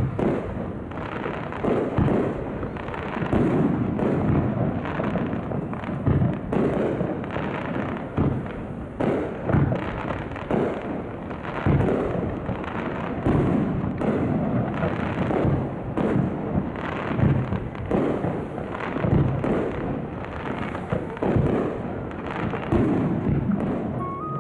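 Fireworks display: aerial shells bursting one after another, a boom every second or two over continuous rumbling.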